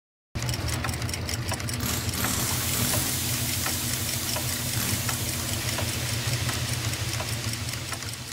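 Machinery sound effect of a logo animation of turning gears: a steady low engine-like hum with scattered clicks and a hissing rush. It starts suddenly just after the beginning and fades near the end.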